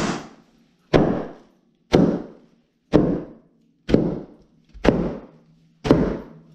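Plastic air-pillow packing cushions burst one after another, about once a second. Each is a sharp pop followed by a brief rustle of plastic as the air rushes out.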